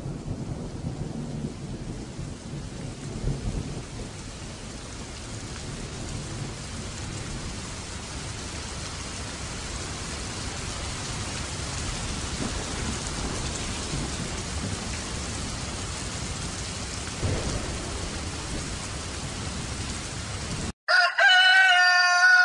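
Recorded sound effect of steady rain and thunder, with a low rumble in the first few seconds and the rain hiss slowly growing louder. It cuts off suddenly near the end, and a rooster crows.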